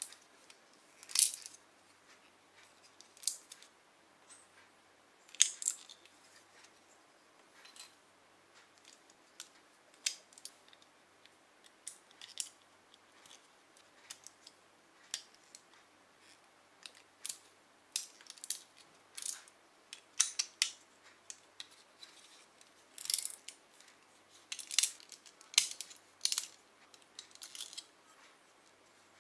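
Lego bricks being handled and pressed together: sharp plastic clicks and snaps at irregular intervals, coming more often in the second half.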